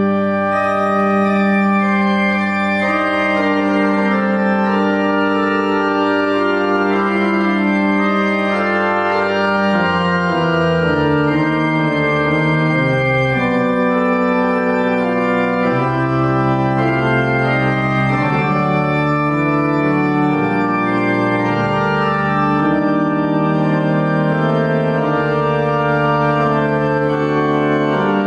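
Church organ playing slow, sustained chords over long-held bass notes, the harmony shifting every few seconds.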